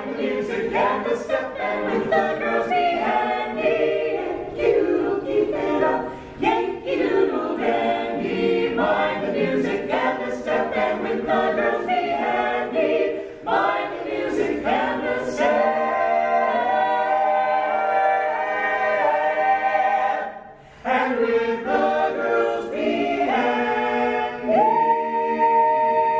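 A mixed a cappella vocal ensemble of eight men and women singing in close harmony without instruments. There is a brief pause about two-thirds of the way through, and the group holds a long sustained chord near the end.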